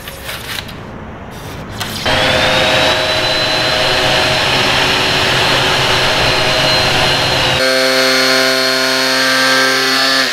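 A utility knife cutting foam board gives soft scraping for the first two seconds. Then a power drill spins up and runs at a steady high whine boring into red-painted steel; about eight seconds in this switches abruptly to a cordless angle grinder running steadily on a steel angle bracket.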